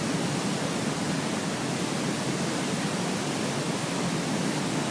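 Large waterfall rushing: a steady, loud roar of falling water.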